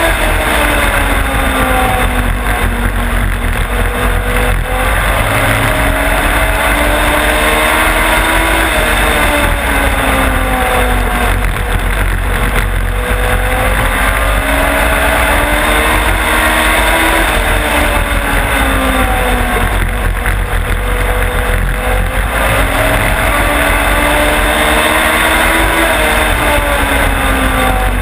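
Onboard sound of a Legends race car's motorcycle-derived engine running at racing speed, its note rising and falling in long repeated sweeps as the driver accelerates and lifts off lap after lap. Steady wind and road noise throughout.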